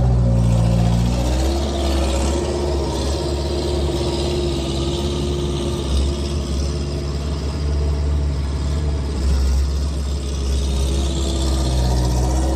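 Skid steer engine running steadily under working load, its note shifting a little at the start and again near the end; the machine is due for a new exhaust.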